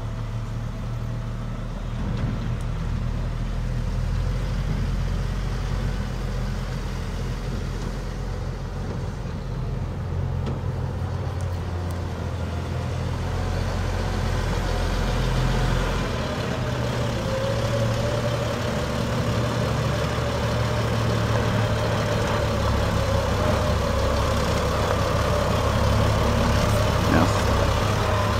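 Heavy diesel truck engine idling steadily, growing a little louder near the end.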